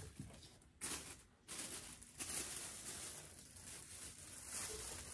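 Faint rustling and handling noise from plastic plant pots being moved and set on a shelf, in a few hissy bursts.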